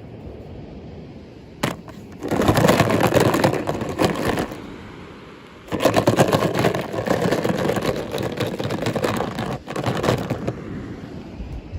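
Crackling and crinkling of plastic packaging being handled and unwrapped, in two long stretches with a sharp click just before the first.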